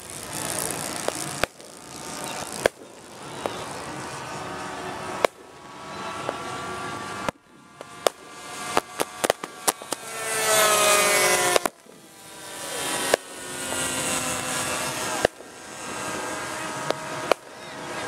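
Radio-controlled model warplanes' engines droning overhead, their pitch rising and falling as they pass, with one long falling sweep in a dive. Sharp pyrotechnic bangs go off through it, with a quick run of them about eight to ten seconds in: ground charges set off as mock bomb hits.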